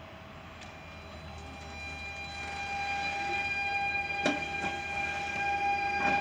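Stadler FLIRT electric multiple unit (PKP Intercity ED160) pulling away from a standstill: the electric traction drive's steady whine of several tones grows louder as the train starts to move. Two sharp knocks come about four and six seconds in.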